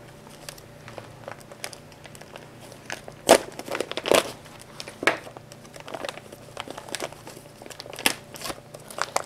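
Thick plastic MRE outer bag being torn open by hand, crinkling and crackling, with a few sharper crackles, the loudest about three seconds in.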